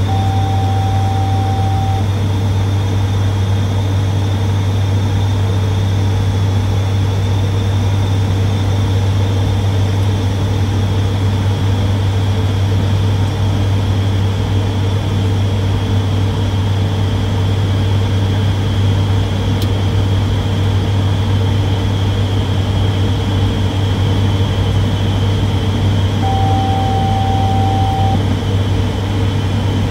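Steady cockpit drone of an ATR 72-500's turboprop engines and propellers, a deep hum with a thin high whine above it. A short steady cockpit beep of about two seconds sounds twice, at the start and near the end.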